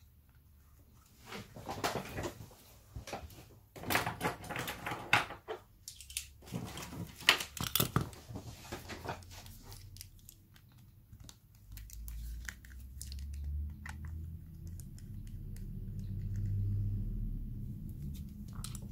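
Crinkling, crackling handling noise in three bursts, with scattered ticks, from the repaired smartphone being handled and pressed on a silicone repair mat, followed by a low rumble of handling later on.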